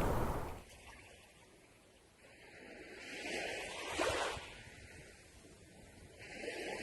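Whooshing air-rush sound effect for a flying FPV drone: a loud rush drops away in the first second, then a softer whoosh swells to a peak about four seconds in, fades, and rises again near the end.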